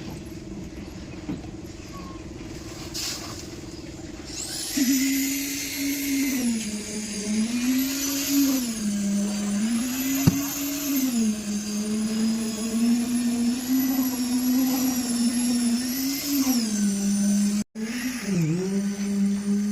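A crane's engine running, with a steady hum at first; from about five seconds in it gets louder and its pitch rises, holds and falls again and again as it is revved during lifting.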